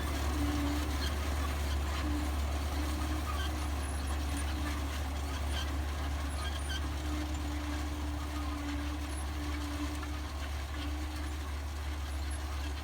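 Crawler tractor engine running steadily while pulling a drill planter sowing buckwheat, a constant low drone with a fainter, higher hum that comes and goes.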